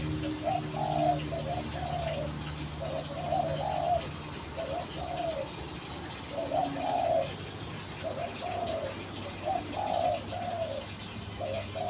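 A dove cooing over and over, in short phrases of two or three low coos every second or two, over a low steady hum.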